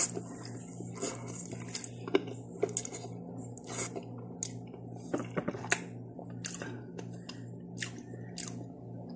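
A person chewing and eating spicy instant noodles close to the microphone: a run of short, irregular mouth clicks and smacks, over a steady low hum.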